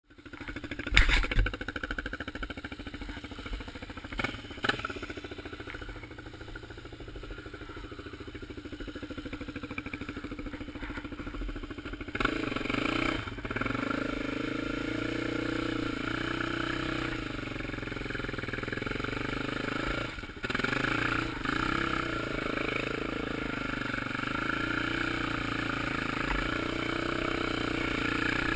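Suzuki LTZ400 quad's single-cylinder four-stroke engine running quietly, with a couple of sharp knocks near the start, then louder under throttle from a little under halfway through as the quad pulls through deep fresh snow, the engine sound dipping briefly about two-thirds of the way in.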